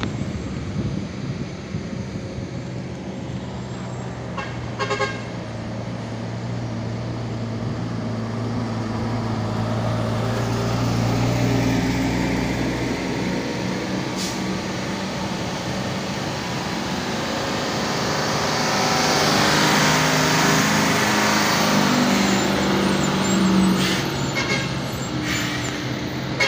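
Heavy sugarcane trucks with trailers running down a winding hill road, a steady engine drone through the first half. The sound grows louder as a loaded truck and trailer passes close near the end.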